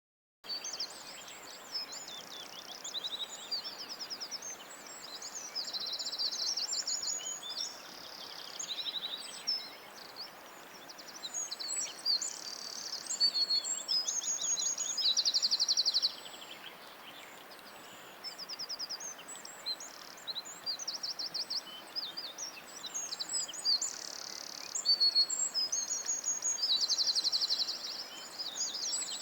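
Lovebirds chirping and chattering without pause: shrill, high-pitched calls with several fast, buzzy trills, over a steady background hiss.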